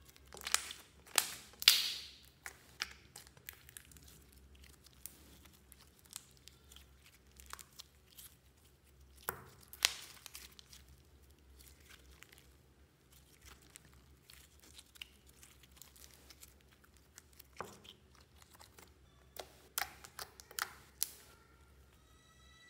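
Slime being squeezed, folded and stretched by hand, giving irregular sharp crackles and pops, most of them in clusters near the start, about ten seconds in and near the end.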